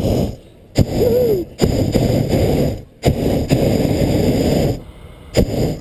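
Cloudhopper's propane burner firing in several blasts of one to two seconds each, each starting and stopping abruptly, heating the envelope to lift off.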